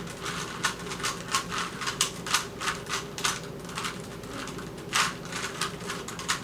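Plastic Rubik's cube being twisted quickly to scramble it: a run of sharp clicking turns, about three a second and unevenly spaced, with one louder snap about five seconds in.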